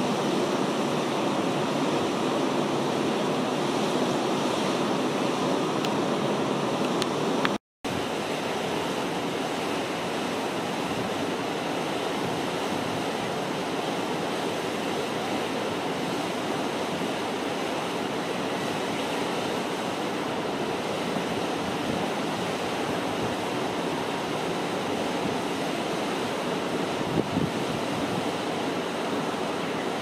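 Water rushing steadily below a dam: an even, unbroken rush, cut off for a moment about eight seconds in.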